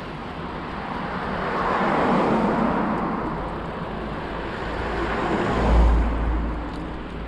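Road traffic, cars passing: one swells past about two seconds in, and a louder pass with a deep rumble peaks near six seconds.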